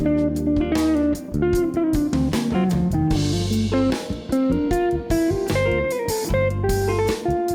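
Guitar-led background music: a plucked guitar melody over a bass line and drums.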